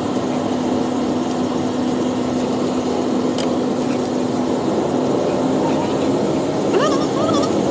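Airliner cabin noise: a steady engine hum and rushing air. From about seven seconds in, a high, wavering voice joins it.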